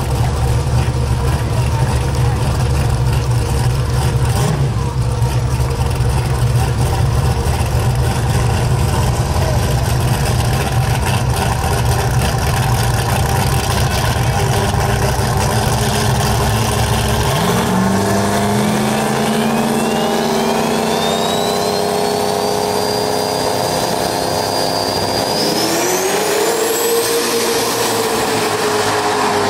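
Drag-racing engines of a turbocharged Camaro and a pickup truck idling on the start line with a loud, deep rumble. About 17 seconds in, they launch and the engine pitch climbs steadily as they accelerate down the strip, with a thinner whine rising above it. A sharper rise comes near the end.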